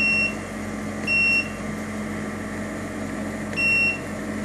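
Keypress beeps from the control panel of an acco solid-state shortwave diathermy unit: three short, high single-tone beeps as the program buttons are pressed to step through treatment programs, the first two about a second apart and the third a few seconds later. A steady low hum runs underneath.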